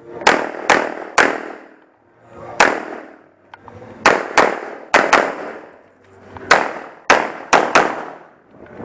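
About a dozen pistol shots fired in uneven strings, several as quick pairs, each followed by a ringing echo.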